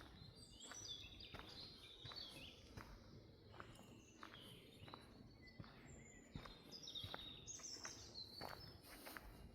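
Birds singing in a forest, a string of short chirps and trills, over soft, irregular footsteps on the forest floor.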